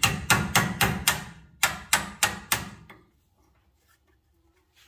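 Rapid sharp metal-on-metal knocks, about four a second: six, a short pause, then four more, as the clamps on a tie rod adjusting sleeve are knocked loose and out of the way.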